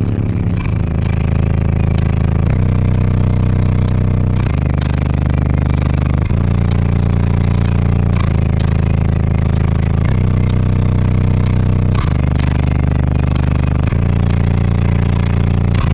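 Bass-heavy music played very loud through a single RE Audio XXX 12-inch subwoofer on a Rockford Fosgate T2500 amplifier, heard inside the car's cabin. Deep bass notes change about every two seconds under a quick ticking beat; the bass pressure is strong enough to blow hair about.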